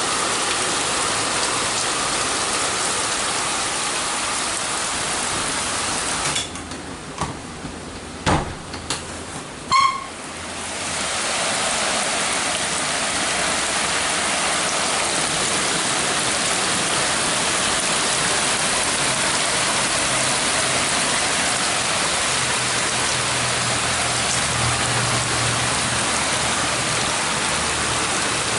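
Heavy rain falling steadily. A few seconds in, the rain noise drops away sharply for about four seconds, with a few clicks and knocks, then returns.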